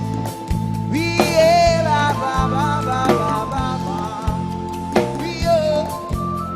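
A live band playing through a sound system during a sound check: drum kit on a steady beat, bass and sustained keyboard chords. A short sung phrase comes in twice.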